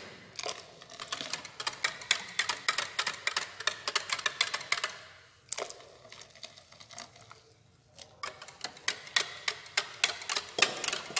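Wire whisk clicking rapidly against a glass bowl as warm milk is whisked gradually into beaten eggs and sugar for a crème caramel custard. The clicking eases off briefly twice, a little past halfway.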